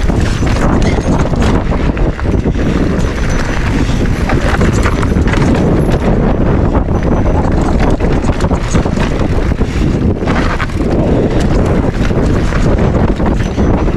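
Mountain bike clattering and rattling over rocky ground, with a continuous stream of small knocks, while wind buffets the unshielded action-camera microphone.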